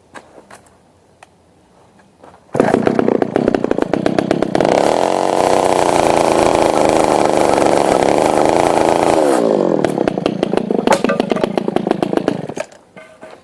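A chainsaw running: it comes on suddenly about two and a half seconds in, revs up to full speed, holds there for about four seconds, then drops back to a lower speed and cuts off near the end. A few faint clicks and knocks come before it.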